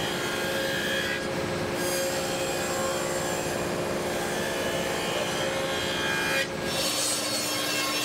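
A power tool running steadily as it cuts a groove in white oak boards. The sound changes about a second in and again after about six and a half seconds.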